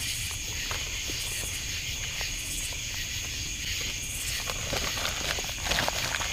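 Chorus of night insects, a steady high-pitched chirring. A few short rustles and snaps come through between about four and six seconds in.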